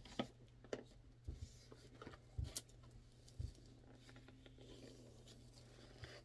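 Faint rustling of paper and packaging, with a dozen light clicks and knocks as small items are handled.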